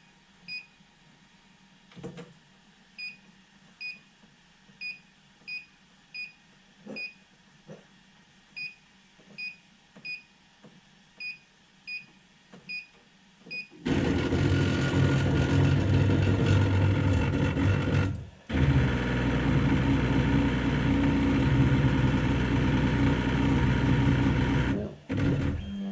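Short electronic button beeps from the MakerPi K5 3D printer's controls, about a dozen at uneven intervals over the first thirteen seconds. Then the printer's stepper motors drive the Z-axis, a loud steady mechanical running that starts suddenly and lasts about eleven seconds, with one brief break near the middle.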